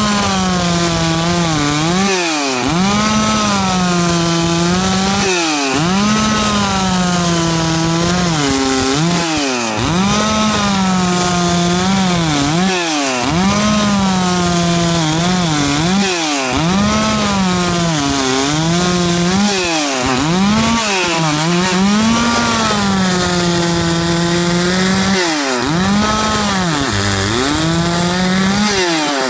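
Stihl 660 two-stroke chainsaw at full throttle, ripping lengthwise through a squared Itaúba hardwood beam. The engine note sags sharply and recovers every few seconds as the chain takes load.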